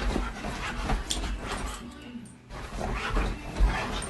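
A dog making small sounds, broken by a brief lull about two seconds in.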